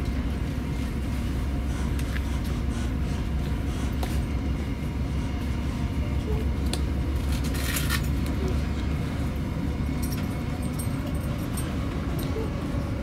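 Cabin noise inside a Chiltern Railways Mainline Mark 3 coach hauled by a Class 68 diesel locomotive: a steady low rumble of the train running along the track, with a few short clicks and rattles from the coach.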